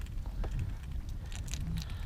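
Wind rumbling on the microphone, with scattered light clicks and small rattles from handling gear.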